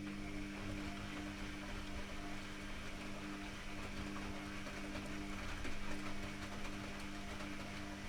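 Privileg Classic 30612 washing machine running with a steady electric hum and a fainter, slightly pulsing tone above it, over a rushing noise.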